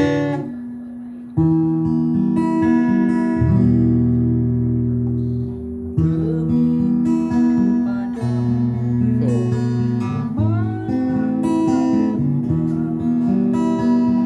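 Morrison steel-string dreadnought acoustic guitar being strummed, chords ringing out; after a short lull near the start, the strumming picks up again and carries on.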